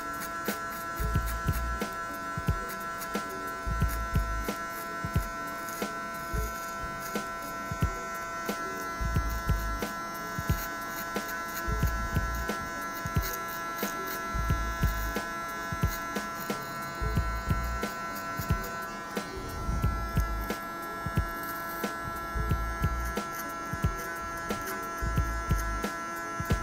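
Electric hair clipper with a 4 mm guard buzzing steadily as it cuts short hair at the back of the head. Short knocks and low thuds come at irregular intervals.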